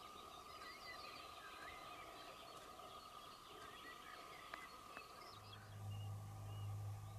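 Faint chirping of small birds, many short scattered calls, over a steady background hum; a deeper low hum comes in about five seconds in.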